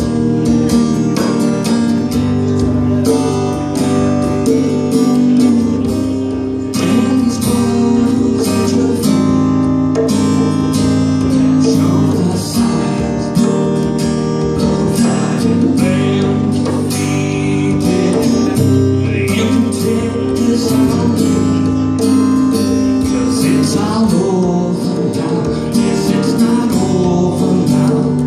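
Acoustic guitar strummed steadily alongside conga drums played by hand, in a live band performance.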